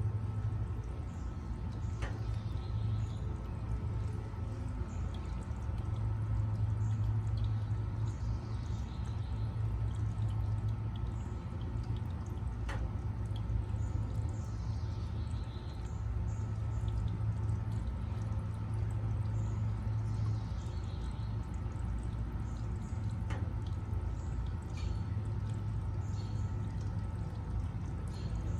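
Water pouring and trickling steadily over a small waterfall, with a steady low hum beneath it and a few faint sharp clicks.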